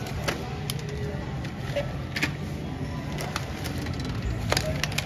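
Groceries being lifted out of a shopping cart: scattered clicks and knocks of packages and the cart over a steady hum of supermarket checkout noise.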